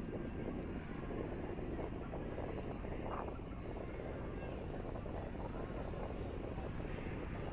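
Steady outdoor background noise, mostly a low rumble, with a few faint high chirps about halfway through.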